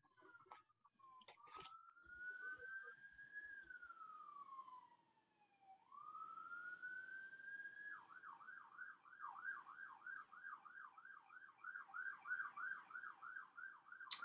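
A faint siren, sweeping slowly up and down in a wail, then switching about eight seconds in to a fast yelp of about three sweeps a second. A few light clicks come near the start.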